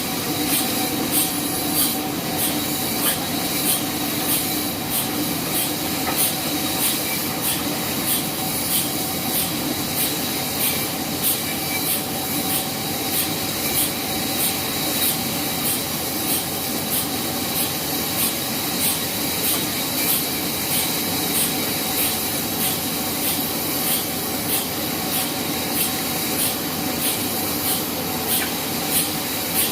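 Sawmill band saw running steadily and cutting through wood, with a steady hum and a regular high tick about twice a second.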